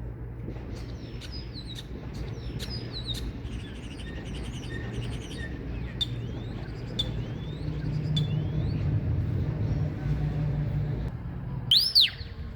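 Common starling song: a jumble of short chirps, clicks and gliding whistles, with one loud rising-and-falling whistle near the end, over a steady low rumble.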